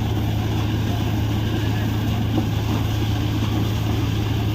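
Borewell drilling rig running steadily, a constant low engine drone with no change in pace.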